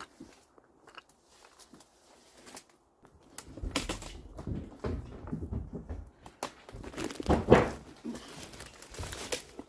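Footsteps and rustling on debris: a few faint clicks at first, then from about three and a half seconds in, irregular scuffs and knocks, the loudest knock a little past the middle.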